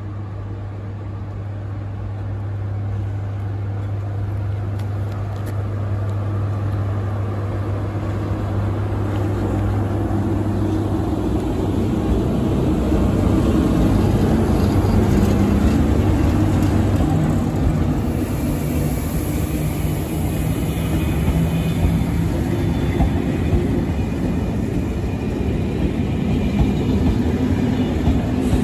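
SNCF BB 22200 electric locomotive hauling Intercités coaches, approaching and passing close by. A steady low hum grows louder until the locomotive goes past about fourteen seconds in, then the coaches roll by.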